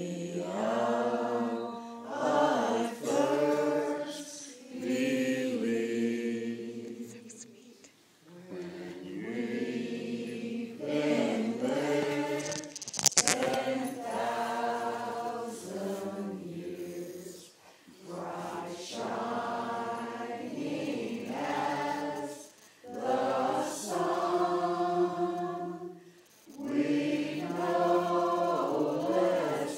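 A small church choir singing together in phrases, several voices at once, with short breaths between phrases. A brief sharp click sounds about halfway through.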